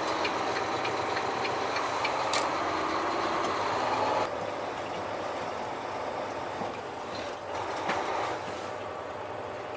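Diesel truck driving, heard from inside the cab: a steady engine hum under road and tyre noise. The noise drops sharply about four seconds in and carries on more quietly.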